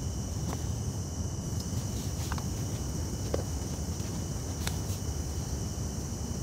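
Crickets and other night insects calling steadily in high, even tones over a low steady rumble. A few light clicks and taps come and go.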